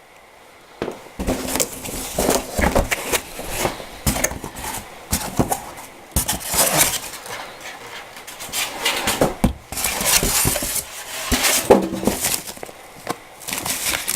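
Hard parts of a JML Dri Buddi heated clothes dryer being handled: irregular clattering, clinking knocks and rustling scrapes, starting about a second in.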